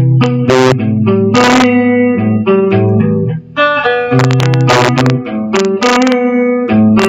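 Guitar playing the song's passage: a run of picked single notes and chord shapes, with a few brighter strummed hits among them.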